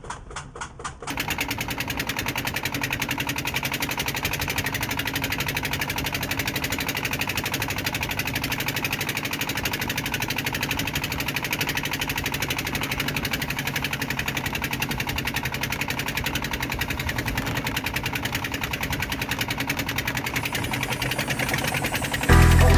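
A small fishing boat's engine running steadily with a fast, even beat. Music comes in loudly right at the end.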